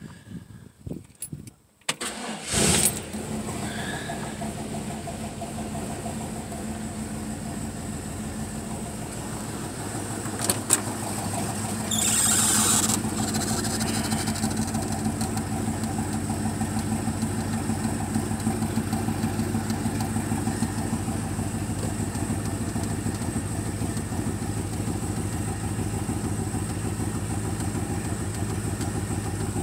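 Customized 1951 Ford Custom convertible's engine cold-starting: a few faint clicks, then it fires about two and a half seconds in and settles into a steady, even idle. Near the middle there is a sharp click and about a second of hiss over the idle.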